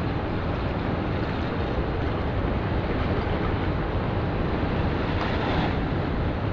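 Steady wind noise on the microphone mixed with the wash of ocean surf.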